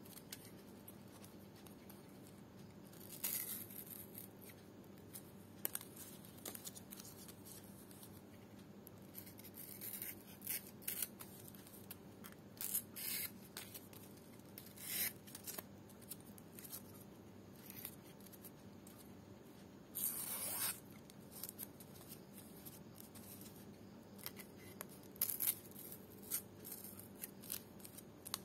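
Small knife cutting and scraping a strip of dried ental (lontar palm leaf): brief crisp cuts at irregular intervals, with one longer stroke about twenty seconds in, over a faint steady hum.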